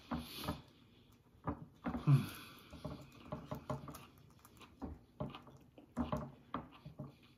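Close-miked chewing of food, with irregular wet lip smacks and mouth clicks a few times a second.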